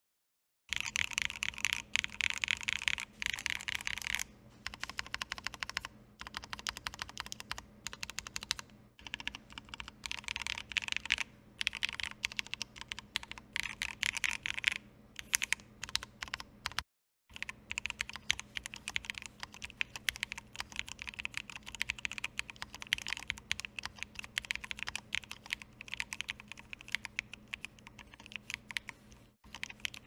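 Typing on a CannonKeys Vicious40 40% mechanical keyboard in a CNC aluminium case, with polyfill in the case and a painter's-tape force-break mod on its metal-on-metal mounts. Runs of fast keystrokes clack with short pauses between them, and the sound cuts out briefly about 17 seconds in.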